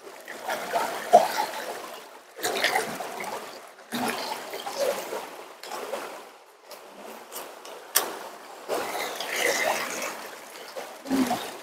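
Water splashing and trickling in about half a dozen short bursts, each starting suddenly and fading, with a sharp click about eight seconds in.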